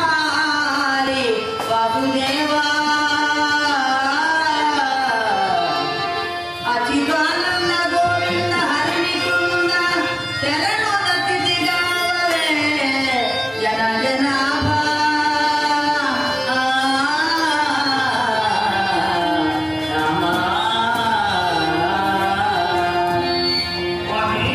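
Singers of a shadow-puppet troupe performing a song for the play, a drawn-out, winding vocal melody with its pitch sliding and wavering, over instrumental accompaniment.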